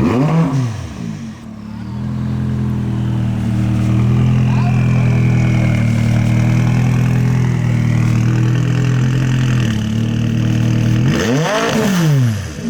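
Straight-piped McLaren 570S twin-turbo V8 running at low revs as it pulls out, blipped once just after the start and again near the end, with the pitch rising and falling each time.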